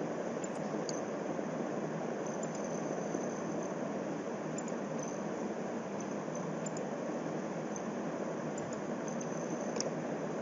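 Steady fan-like background hiss in a small room, with a few faint light clicks.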